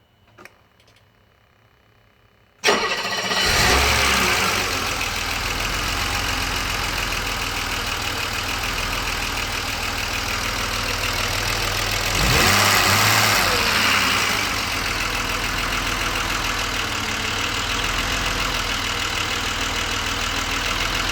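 A faint click, then about two and a half seconds in the BMW 635CSi's straight-six starts and settles into a steady idle at operating temperature: a warm restart after the air hose was refitted to the throttle body. About ten seconds later the engine speed rises briefly and drops back to idle.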